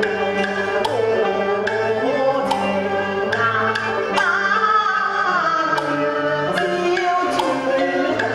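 Cantonese opera music: a melodic instrumental line over sustained bass notes, with sharp percussion strikes about every half second.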